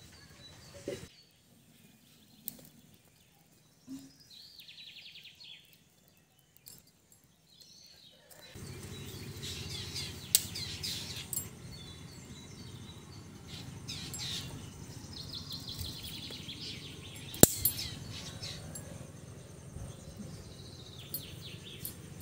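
Birds chirping and singing in short trills, over a few sharp knocks and clicks of dry firewood sticks being handled, the loudest about seventeen seconds in. A steady low background noise comes in about eight seconds in.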